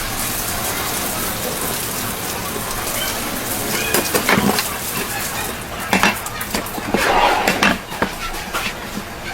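A knife clicking and scraping against a cutting board and tuna flesh as a bigeye tuna is cut by hand, in scattered sharp knocks over steady background noise and voices.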